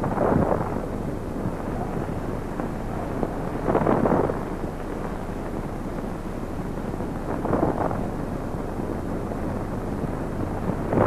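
Steady hiss and low hum of a worn 1930s optical film soundtrack, broken four times by a short muffled sound, about three and a half seconds apart.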